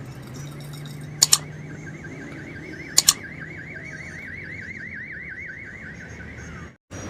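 Metal spatula rapping sharply on a hot iron tawa, two quick double clacks about a second and a half apart. Under it runs a high warbling tone that wavers rapidly up and down for several seconds before stopping shortly before the end.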